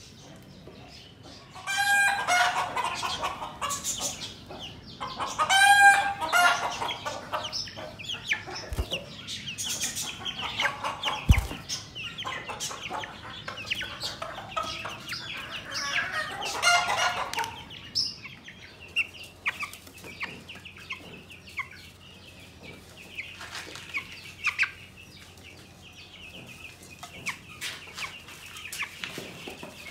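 A flock of two-week-old broiler chicks peeping and cheeping, with two loud, longer calls about 2 and 6 seconds in and a short knock about 11 seconds in. The calling thins out to scattered chirps in the second half.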